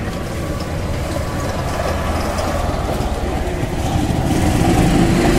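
A line of golf carts driving past along the cart path, their engines running, growing louder near the end as carts come close.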